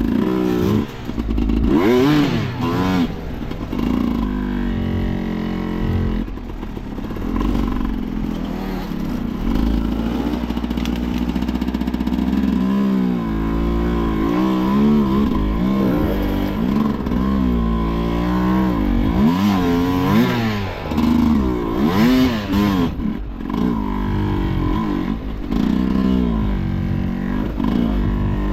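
Enduro motorcycle engine being revved up and down again and again on the throttle, its pitch climbing and dropping every second or so, as the bike works over slippery ground.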